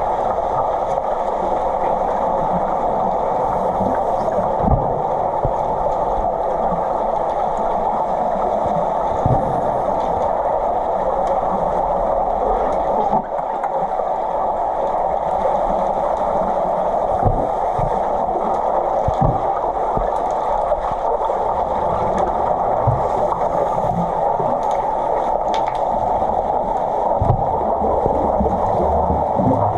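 Underwater sound picked up by a submerged camera in a swimming pool: a steady, muffled rush of water, broken by occasional short low thumps as finned players churn and kick through the water.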